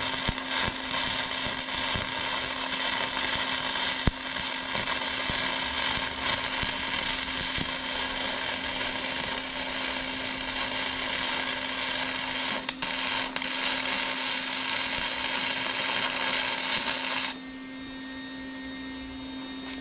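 Electric welding arc hissing and crackling steadily through a long continuous bead, cutting off sharply about seventeen seconds in. A steady hum is left behind.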